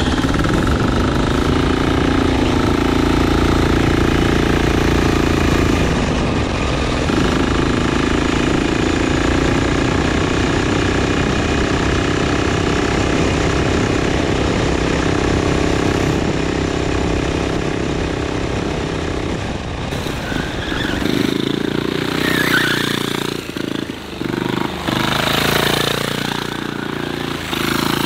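Go-kart's 10-horsepower Kohler single-cylinder turbo diesel running hard under load as the kart is driven. About twenty seconds in the sound turns thinner and choppier, with sharper high-pitched noises over the engine.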